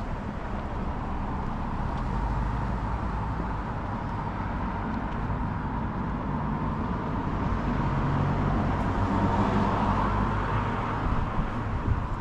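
A motor vehicle's engine running steadily over an outdoor noise haze, growing louder about two-thirds of the way through and then easing.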